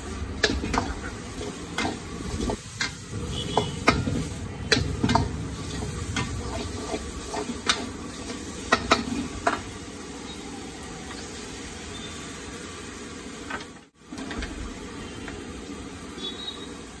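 Metal ladle knocking and scraping against an iron kadhai (wok) as vegetables are stir-fried, over a steady sizzle of frying oil. The quick ladle strikes thin out a little past halfway, leaving mostly the sizzle.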